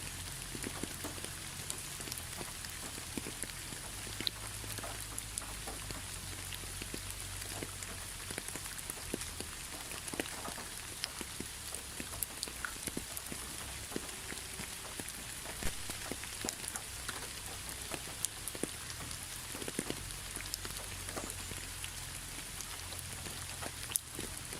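Steady rain falling, with many single drops heard as sharp ticks over an even hiss.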